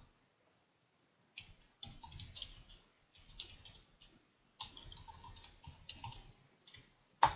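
Typing on a computer keyboard: runs of quick, quiet key clicks, with one louder click near the end.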